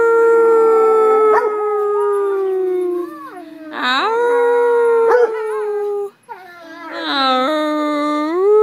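A wolf-mix dog and a bluetick coonhound howling together: three long howls of two to three seconds each with short breaks between, two voices at different pitches overlapping at times, the last one rising in pitch near its end.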